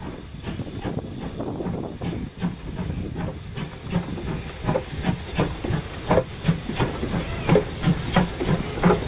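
GWR 2800-class 2-8-0 steam locomotive running slowly past close by: steam hissing, with a regular beat about two a second that grows louder as the engine draws level.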